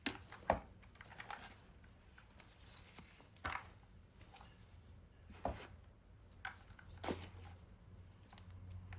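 Handling noise: scattered faint clicks and rustles as a small plastic portable speaker is turned over in the hands, seven or so short sounds spread across a few seconds.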